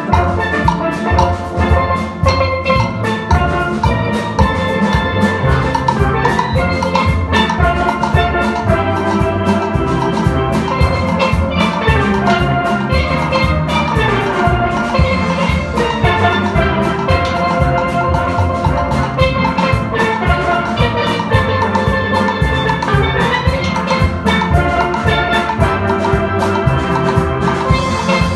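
Steel pan band playing a gospel tune: melody on the pans over a steady drum beat.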